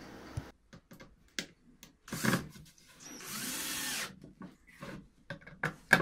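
Cordless drill running steadily for about a second, boring a pilot hole into a plywood panel, with a few short knocks and clicks of handling before and after.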